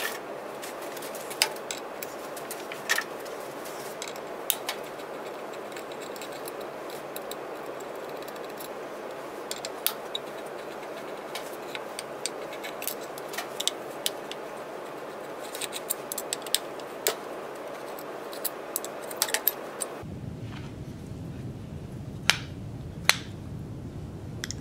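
Scattered sharp clicks and clinks of a hex key and small steel parts as the bolts of a web guide's linear raceway carriage are undone and the carriage is taken off its metal base plate. The clicks come thickest a few seconds before the end, with two louder ones near the end, over a steady hiss.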